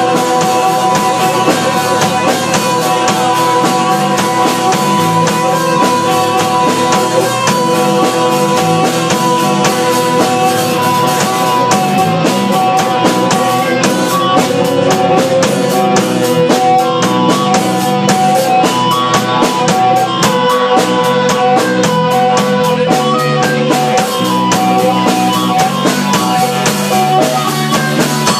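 Live rock band playing: drum kit, electric guitars and keyboard, with held notes ringing over a steady beat. It is recorded on a phone, so there is almost no bass.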